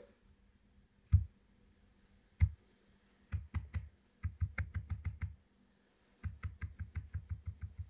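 Keys clacking on a Chromebook's keyboard: two single presses, then three quick runs of about seven or eight presses a second.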